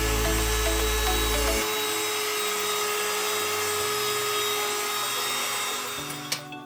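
Background music with a sustained, hissy swell over held tones; its deep bass drops out under two seconds in, and it fades down near the end.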